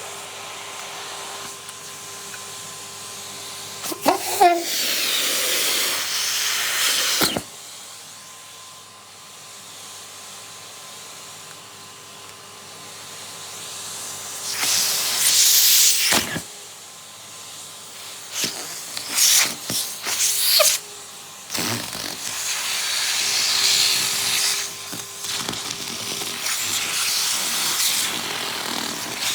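Henry vacuum cleaner running with a steady motor hum, broken several times by loud rushing, hissing surges of suction as the nozzle pulls at pieces of old nitrile gloves.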